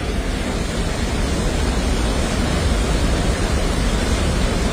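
Floodwater rushing in a steady, heavy torrent, a dense low rumbling hiss that swells slightly over the first second or two.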